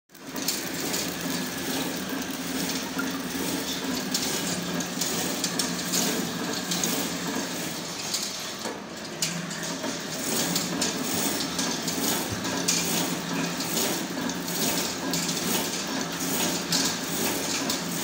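Automatic high-speed shrink-wrap packing machine running: a steady mechanical hum with continual clicking and clatter of plastic switch-panel frames on its conveyor. The sound dips briefly about halfway through.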